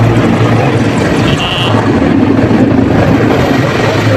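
Military aircraft flying overhead: a loud, steady engine noise with a low drone.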